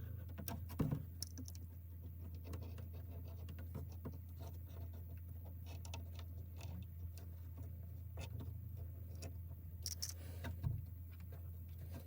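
Faint scattered clicks and light scraping of a screen rolling tool pressing rubber spline into a window frame's channel, over a steady low hum.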